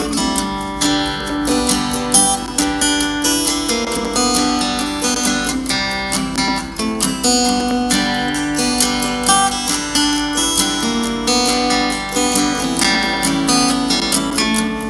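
Strummed acoustic-guitar music played through a Robot RB100 portable Bluetooth speaker, a 3 W unit with a single 40 mm driver, for a sound test. It has little deep bass.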